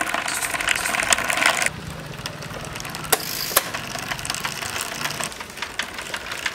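DIY electric bicycle's motorcycle starter motor running, whirring with the drive chain rattling as it turns the rear wheel. The sound is loudest at first, then drops to a quieter, lower hum a little under two seconds in, with two sharp clicks near the middle.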